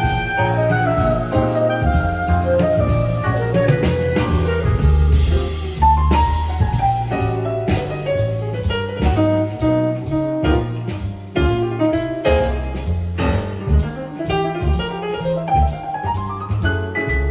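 Jazz with piano, bass and drums, played back through a Yamaha CA-2000 stereo amplifier, with a rising run near the end.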